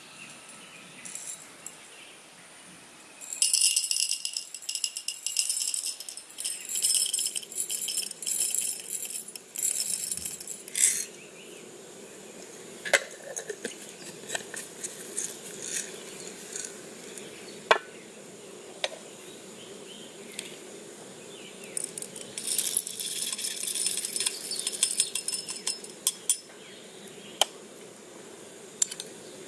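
Whole coffee beans poured from a canister into a small stainless steel cup, rattling against the metal in two spells of a few seconds each, with a few sharp clicks of handling in between.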